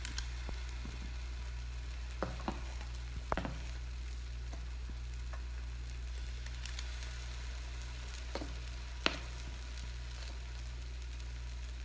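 Pancake batter sizzling faintly on a hot griddle as scoops of batter are dropped on, over a steady low hum. A few light clicks of the metal ice cream scoop, the sharpest about nine seconds in.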